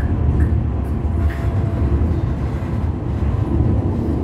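Steady low rumble of an Alstom Citadis Dualis tram-train running along the track, heard from inside the passenger cabin, with a faint steady motor hum and a few brief squeaks in the first second and a half.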